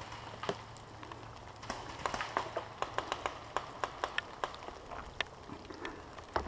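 Paintball markers firing: scattered sharp pops, with a quick string of them about two to four and a half seconds in, over a faint steady hiss of rain.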